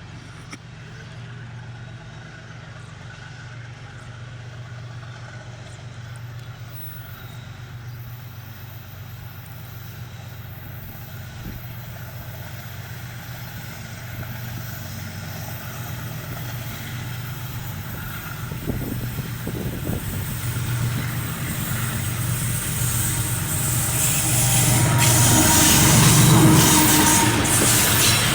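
Diesel locomotive engine chugging with a steady low drone that grows steadily louder as it approaches. Rushing rail and wheel noise builds over the last few seconds as it draws close.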